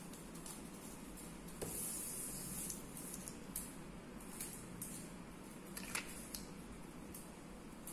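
Faint rustling and scratching of fingers coiling string and pressing it onto glued paper, with a few light ticks.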